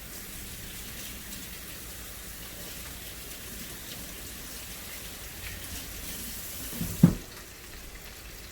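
Battered oyster mushrooms deep-frying in hot grease, a steady crackling sizzle. About seven seconds in comes a single dull thump, the loudest sound.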